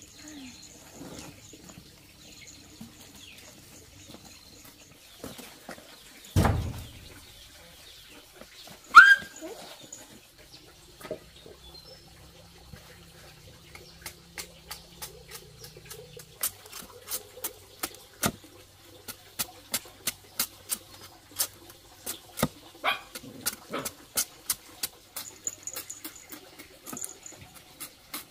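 A heavy knife striking cassava roots as their thick skin is hacked off, in sharp knocks about two a second through the second half. Earlier there is a single thump, and about nine seconds in a short, loud animal call rising in pitch.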